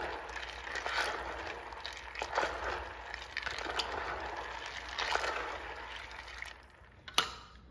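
Dried corn kernels and water being stirred with a spatula in a pot, swishing in uneven strokes about once a second, as slaked lime is mixed into the soaking water to nixtamalize the corn. The stirring stops near the end, followed by a single click.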